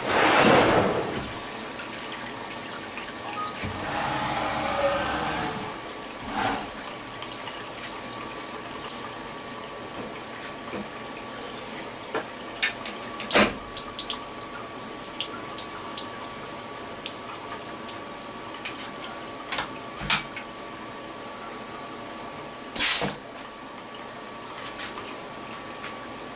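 Steady hiss of a mist coolant sprayer at a CNC mill, with a faint steady whine, scattered sharp ticks and a few brief louder bursts.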